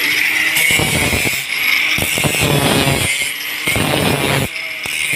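Angle grinder grinding a steel crank rod: the motor's steady high whine runs throughout, and the rasping grind of the disc on the steel comes and goes as it is pressed on in about four passes.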